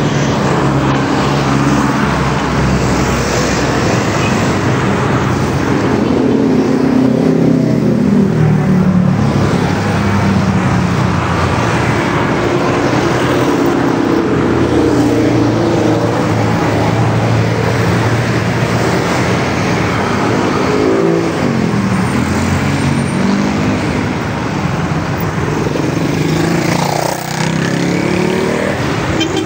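Busy street traffic close by: engines of cars and motorcycles running steadily, with several vehicles passing one after another and their pitch sweeping as they go by.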